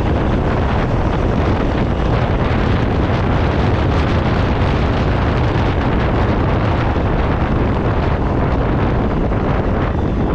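Loud, steady rumbling noise of a moving vehicle, with wind buffeting the microphone.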